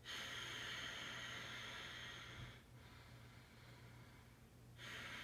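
A man's slow, deep breathing, faint and hissy: one long breath lasting about two and a half seconds, a quiet pause, then the next breath beginning near the end.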